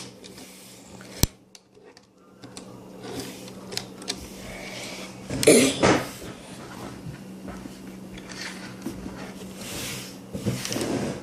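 Plastic clicks and knocks of a Transformers toy being handled, with one sharp click about a second in and a louder clatter about five and a half seconds in.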